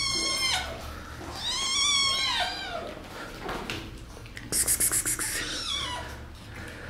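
Kittens meowing: a short meow at the start, a longer, louder meow that rises and falls about two seconds in, and fainter meows near the end. About four and a half seconds in comes a short, fast run of sharp, hissy ticks.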